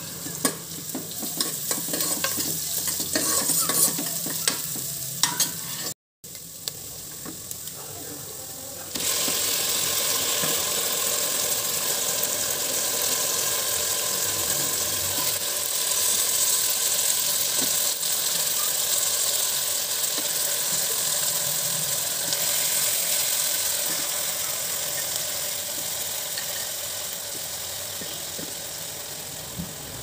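Raw mutton pieces dropped by hand into hot oil in a pressure cooker, with handling clicks, then sizzling. The sizzle becomes loud and steady about nine seconds in and slowly fades toward the end.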